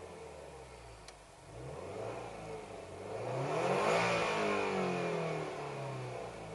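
Subaru Legacy BP5's boxer four-cylinder through a Racing TITAN titanium muffler, revving: the exhaust note rises in pitch to its loudest about four seconds in, then falls away as the revs drop.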